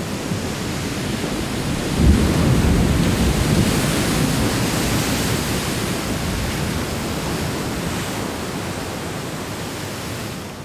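Heavy surf: a loud, steady rush of breaking waves, with a deep surge about two seconds in, easing slowly and dropping off near the end.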